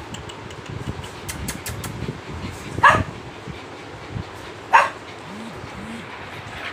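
Two short, sharp animal calls, each a fraction of a second long, about two seconds apart, over a steady low background noise.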